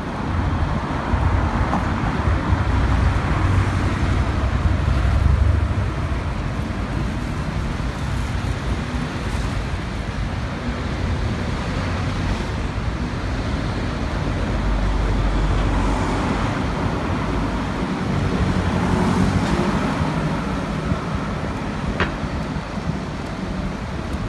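Road traffic on a busy city street: a steady hum of passing cars and lorries, swelling as heavier vehicles go by, loudest in the first few seconds. A single sharp click sounds near the end.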